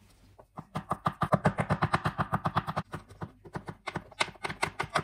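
Kitchen knife mincing garlic on a plastic cutting board: fast, even chopping taps, about eight a second, in two runs with a short break near the middle.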